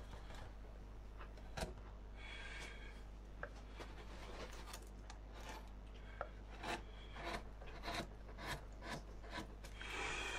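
Hand carving gouge paring into a wooden board, faint short scraping cuts and clicks that come about twice a second in the second half, with a longer scraping cut near the end. A steady low hum runs underneath.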